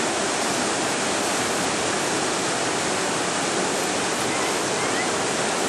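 Whitewater river rapids rushing steadily, a loud, even sound of water.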